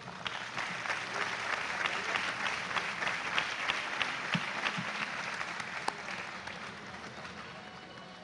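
Audience applauding in a large hall. The clapping swells about a second in and dies away over the last couple of seconds.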